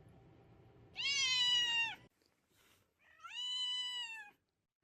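A deaf house cat gives two long meows, each lasting about a second, with the pitch dropping at the end of each.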